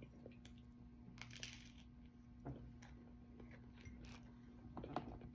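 Faint, close chewing of soft pandesal bread with a few small clicks and a short hiss about a second in, over a faint steady hum.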